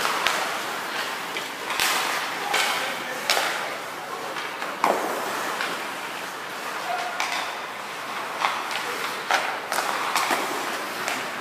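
Ice-hockey skates scraping and carving on the ice, with sharp clacks of sticks and pucks, echoing around a large indoor rink. The loudest clack comes about five seconds in, and a run of smaller ones follows near the end.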